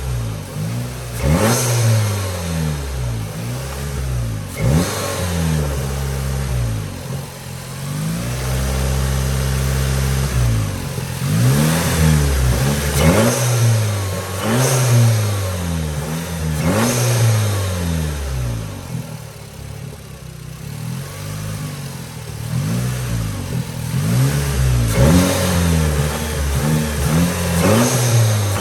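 Straight-piped, APR-tuned 2017 VW Passat R-Line with a new AEM intake, revved over and over while standing: quick blips that climb and drop back toward idle every couple of seconds, with a sharp crack at the top of several of them. About eight seconds in the revs are held steady for two or three seconds, and around twenty seconds in the engine settles lower and quieter before the blips resume.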